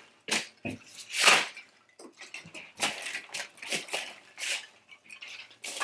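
Loose packing peanuts being scooped and pushed around by hand inside a cardboard shipping box: irregular rustling and crunching, loudest about a second in.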